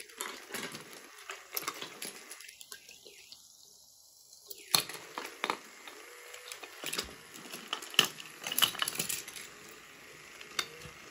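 Wooden toy engines and carriages clacking and knocking against each other and the wooden track as they are handled, in irregular sharp clicks, with a few louder knocks near the middle.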